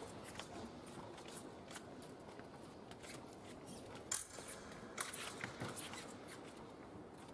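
Épée blades clicking and scraping against each other as two fencers probe on guard, faint over a low background, with a few sharp clicks about four to six seconds in.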